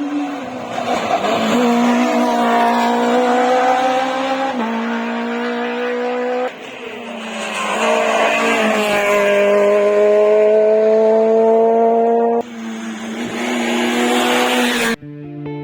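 Rally car engines accelerating hard, their pitch climbing steadily and dropping at each gearchange across several passes. Music starts abruptly near the end.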